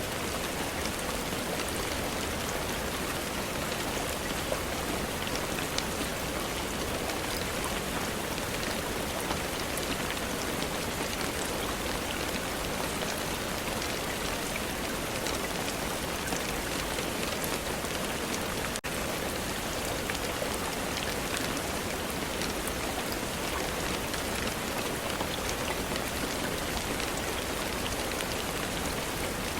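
Steady rain falling: an even hiss with scattered pattering of drops. It drops out for an instant about two-thirds of the way through.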